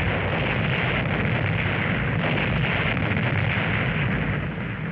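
Soundtrack effect of a huge warship explosion: a loud, continuous, deep rumble that holds steady without a break.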